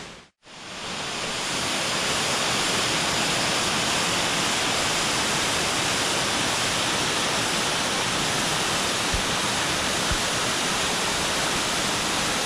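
Steady rush of a multi-tiered waterfall: an even wash of falling water that fades in just after the start and then holds level.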